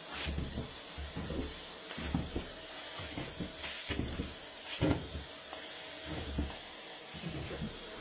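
Vacuum cleaner running, its hose end sucking at a towel and socks: a steady high hiss of rushing air with irregular low bumps and a few sharp clicks as the nozzle grabs and lets go of the fabric.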